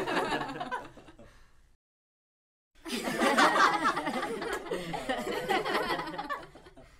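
Human laughter: one round of laughing fades out about a second in, a short stretch of silence follows, then a second round of laughter starts near three seconds in and dies away near the end.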